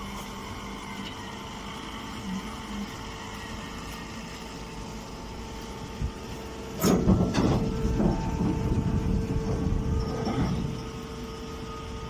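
Chopped-straw compress baler running with a steady mechanical hum. About seven seconds in there is a sudden loud knock, then roughly three seconds of loud rumbling and scraping as the sacked straw bale comes out of the chamber.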